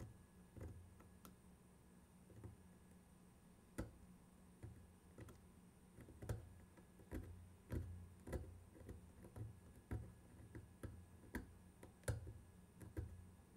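Faint, irregular small clicks and ticks of a steel screwdriver blade working in the slot of a torch-hardened steel watch screw clamped in serrated pliers, as the screw is tested for brittleness. The clicks come about once a second at first and more often from about halfway through.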